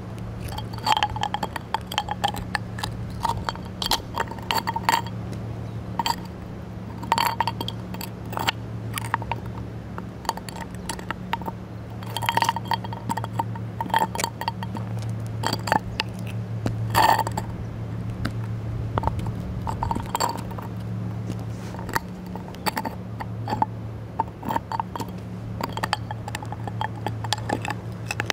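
Spiny turban shell clicking, clinking and grinding on concrete under a leather boot sole as the boot presses and rocks on it. The sharp clicks come irregularly, in little clusters every second or two, over a steady low hum.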